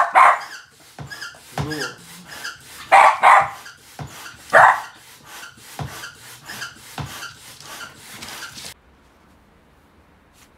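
West Highland White Terrier barking: a rapid run of sharp barks, the loudest in the first five seconds. The barking cuts off suddenly about nine seconds in.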